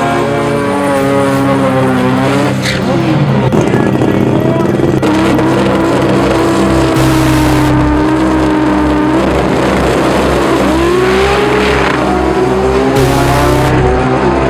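Music track mixed with a drag race car's engine running hard and then launching down the strip.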